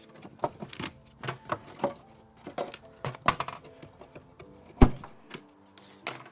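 Irregular knocks and clicks of hard parts being handled and tapped during hand work in a stripped vehicle interior, the loudest knock about five seconds in, over faint background music.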